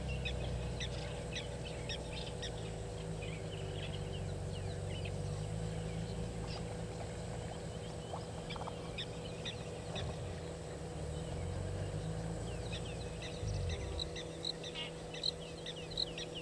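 Small birds chirping, a scatter of short, high calls that grow busier near the end, over a low, steady droning hum that stops about 14 seconds in.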